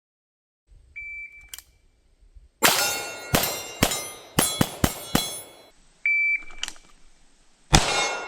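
An electronic shot timer beeps once, and about a second and a half later a quick string of about seven pistol shots follows, each with the clang of hits on steel targets. Near 6 s the timer beeps again, and a new string of shots starts near the end.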